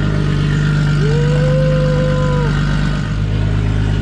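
A car engine idling with a steady low rumble. From about a second in, a long held tone rises, holds for about a second and a half, then falls away over it.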